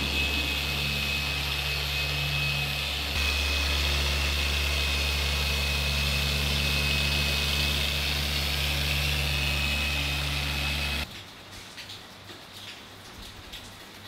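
Corded handheld machine polisher running steadily on car paint, a low motor hum with a high whine, stepping up slightly about three seconds in and cutting off abruptly about eleven seconds in.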